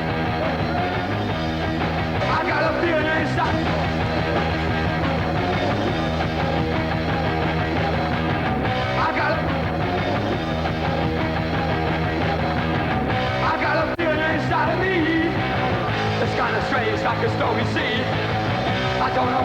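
Rock music with a steady band backing and a singing voice that comes in and out.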